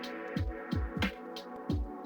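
Background music: an electronic track with a deep kick drum that falls in pitch on each hit, sharp percussion and held synth chords.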